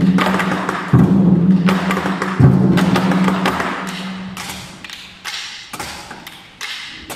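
Ensemble of 24 Seasons drums, large Chinese barrel drums, struck with sticks: heavy ringing booms, with big accented hits about a second in and again near two and a half seconds. The drumming then dies down to quieter, scattered sharp taps.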